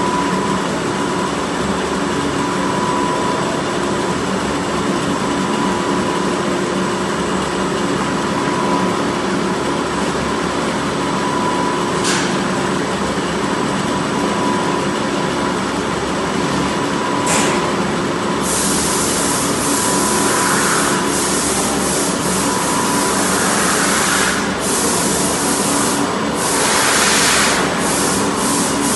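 CNC PVC pipe threading machine running steadily, with a constant mechanical hum and whine. A couple of sharp clicks, then from about two-thirds of the way through, repeated short bursts of hissing.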